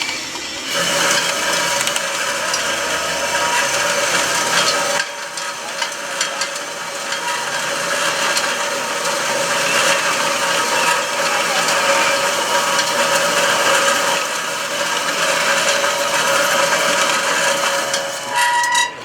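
Electric drive motors and gearboxes of radio-controlled scale construction models running, a steady whine over a dense rattle of gears, dipping briefly about five seconds in.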